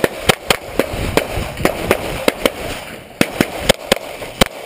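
Glock pistol firing a rapid string of shots, about three a second and often in quick pairs, while a USPSA course of fire is shot.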